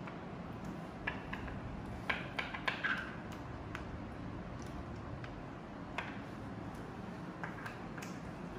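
Small clicks and taps of hands handling wires and a test probe at an electrical distribution board, a quick cluster about two to three seconds in and a few single clicks later, over a steady low background hum.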